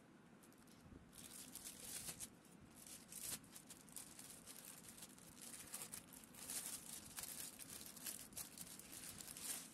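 Thin clear plastic packaging bag crinkling and rustling as hands press and handle it, in a string of short, irregular rustles that begin about a second in.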